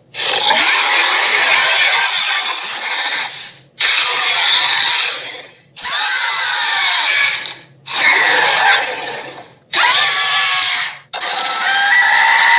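A run of six short, loud mechanical whirring and grinding sound effects in the style of a robot transforming, each one to three seconds long with a brief silence between. The last carries rising whining tones.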